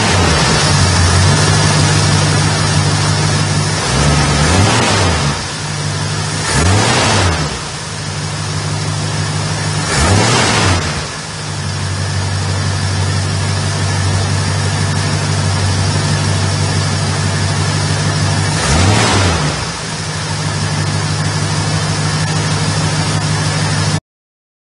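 1971 Ford F100's 302 V8 with its two-barrel carburetor idling steadily, the throttle blipped several times so the revs rise and fall quickly, then cut off suddenly near the end.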